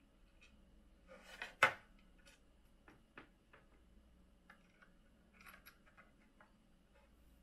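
Small clicks and taps of 3D-printed plastic parts and a soldering iron being handled on a wooden workbench while heat-set inserts are pressed in, with one louder knock about a second and a half in.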